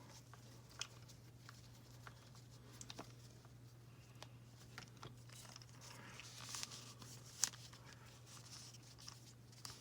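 Faint rustling and small clicks of a plastic fashion doll being handled and dressed in its fabric outfit, with one sharper click about seven seconds in, over a low steady hum.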